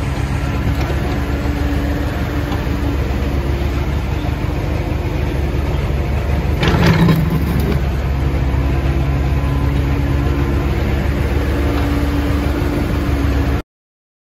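Volvo compact crawler excavator's diesel engine running steadily as the machine digs soil. About seven seconds in a louder, rougher burst rises over it as the bucket works the dirt, and the sound cuts off suddenly near the end.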